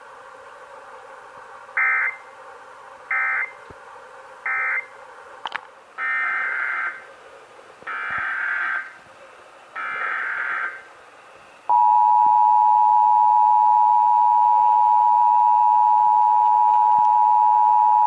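Emergency Alert System data bursts: three short, screechy end-of-message bursts, then three longer header bursts about a second apart. Then the steady EAS two-tone attention signal (853 and 960 Hz together) starts about two-thirds of the way in and holds, announcing a Required Monthly Test.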